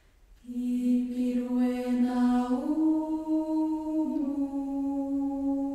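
Background music: a slow, chant-like vocal melody of long held notes. It starts about half a second in, steps up in pitch past the middle and dips slightly near the end.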